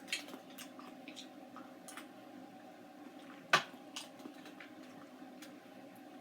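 Wet chewing and small mouth clicks from someone eating soft canned pears, with a sharp knock about three and a half seconds in, over a steady low room hum.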